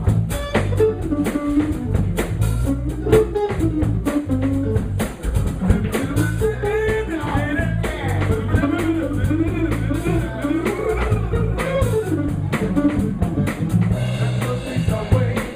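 Live blues-rock band playing an instrumental section: an electric guitar lead with bending notes over bass guitar and a drum kit.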